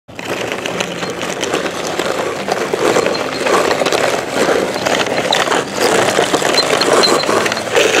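Toy bulldozer's plastic tracks and blade grinding through loose gravel: a dense, continuous crunching and scraping with many small clicks of stones.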